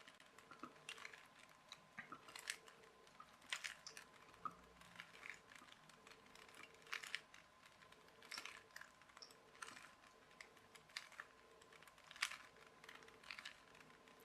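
Rubik's Cube being turned by hand: faint, irregular plastic clicks of its faces twisting and the cube being rotated, roughly one or two a second.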